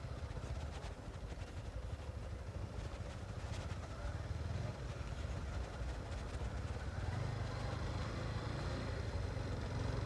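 Motorcycle engine running at low speed over a rough, broken road, with small knocks and rattles from the bumps in the first few seconds. The hum gets a little louder and steadier near the end.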